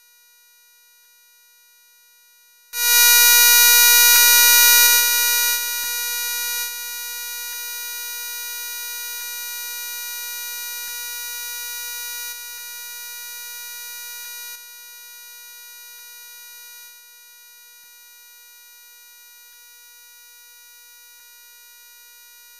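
A steady electronic buzzing tone, one unchanging mid-high pitch, cuts in suddenly about three seconds in at a loud level and then drops in loudness in several sudden steps until it is faint near the end.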